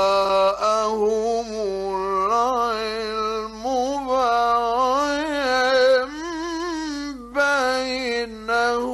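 A male Quran reciter's voice draws out one long melismatic phrase in the mujawwad style, its pitch wavering in ornaments and climbing midway. There is a short break for breath about seven seconds in.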